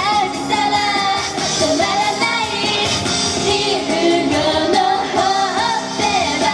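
Japanese idol pop song sung live by young girls' voices over a full pop backing, the sung melody continuing without a break.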